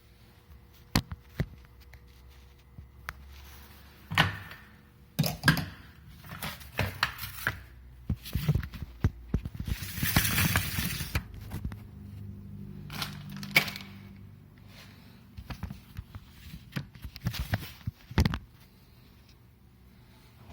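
Scattered clicks and knocks of tools and sheet-metal parts being handled while screws are taken out of an electric range, with a rustling, scraping burst about ten seconds in.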